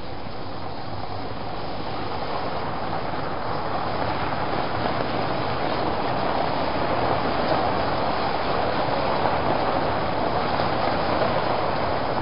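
Cars rolling slowly over paving stones: a steady rush of tyre and engine noise that gradually grows louder.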